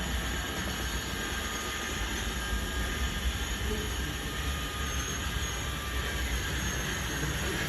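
Radio-controlled scale model D155 bulldozer driving forward under load. Its drive motors give a thin high whine over a steady rattling, grinding rumble from the running gear.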